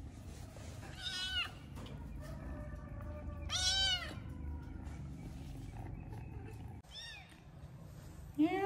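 Kittens meowing: a few short, high-pitched meows a couple of seconds apart, the loudest about halfway through, then a longer, lower meow starting near the end.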